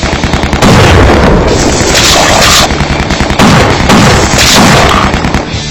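A loud, sustained booming, rumbling noise with a few falling sweeps in it.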